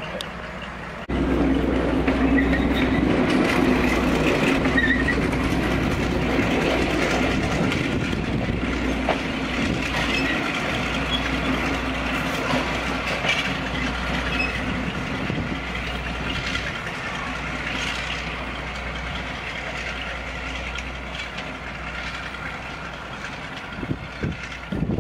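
Diesel locomotive hauling coaches away, its engine running with a steady drone that is loudest about a second in and slowly fades as the train draws off.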